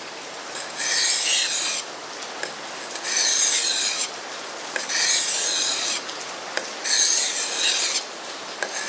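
Becker BK7 knife blade being pushed across a wet combination whetstone: four long, gritty sharpening strokes about two seconds apart, the blade scraping through the water-and-grit slurry.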